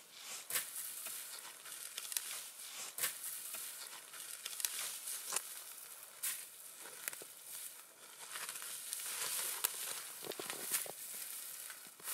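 Spruce branches rustling and crackling as they are laid and pressed into place, with many sharp snaps of small twigs.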